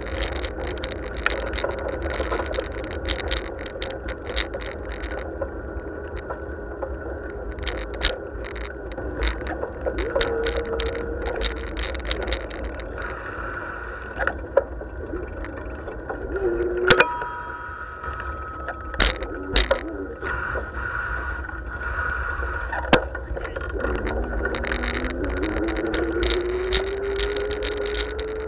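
Bicycle ride recorded from a bike-mounted camera: a constant rattle of the bike and camera mount over the path surface, with low wind and road rumble and a few sharper knocks. A hum rises steadily in pitch over the last few seconds.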